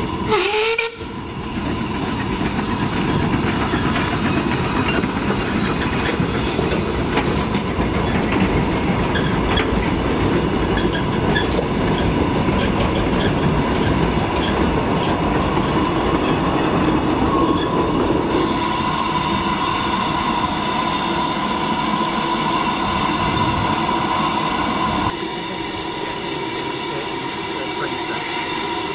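Narrow-gauge steam train passing: a small saddle-tank locomotive working by with a rake of goods wagons, the wheels clattering over the rail joints. A short whistle sounds in the first second, and near the end the sound drops to a quieter steady background.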